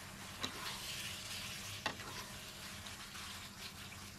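Sliced pork sizzling in panang curry paste and coconut cream as a spatula stir-fries it in a nonstick pan: a steady frying hiss, with two sharp knocks of the spatula on the pan about half a second and two seconds in. The pork is just starting to cook through.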